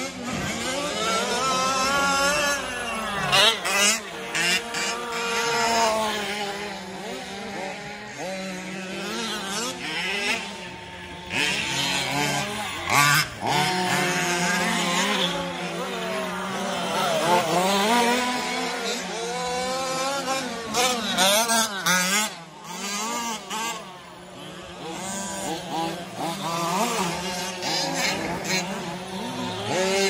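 Several radio-controlled 4WD racing trucks run together, their motors rising and falling in pitch as they accelerate and brake around the dirt track. Occasional sharp knocks are heard among them.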